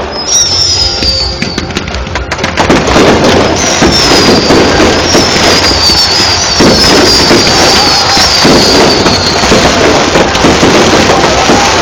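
Fireworks display: a dense barrage of bangs and crackle. From about four seconds in, several whistling shells whistle one after another, each falling in pitch.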